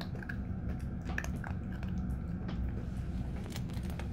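Eight-week-old cockapoo puppy mouthing and chewing on a person's hand, with scattered small clicks of its teeth.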